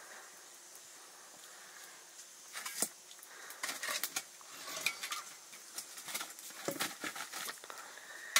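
Kitchen utensils and dishes clinking and knocking. A run of irregular sharp clinks starts a couple of seconds in and carries on until near the end.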